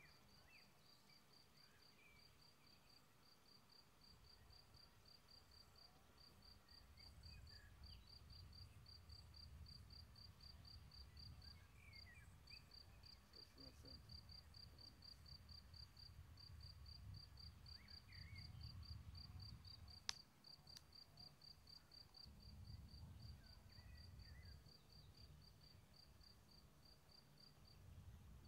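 A cricket chirping faintly in a steady train of short high pulses, about four a second, with a few brief gaps. Underneath runs a low rumble that swells and fades, and a single sharp click stands out about two-thirds of the way through.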